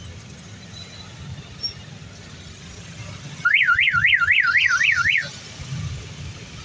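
Low engine rumble of an auto-rickshaw moving through street traffic. About halfway through, a loud electronic warbling tone from a vehicle's siren-style signal rises and falls about four to five times a second for nearly two seconds, then stops.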